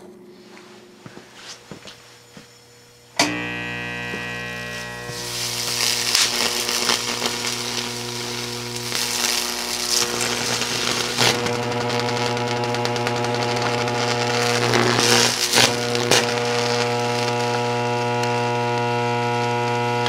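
Coffee maker's heating element arcing on 480 V with no current limiting: a loud, steady mains buzz with many overtones that starts suddenly about three seconds in, soon joined by dense crackling of sparks.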